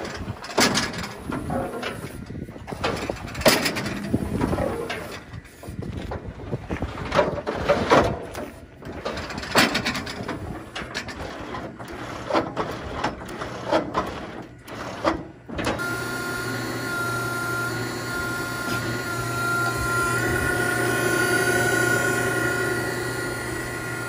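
Irregular metal clanking and banging from a Daniels hydraulic cattle squeeze chute as its gates and panels are worked. About two-thirds of the way in, a small engine driving the chute's hydraulic pump starts to be heard, running steadily and evenly.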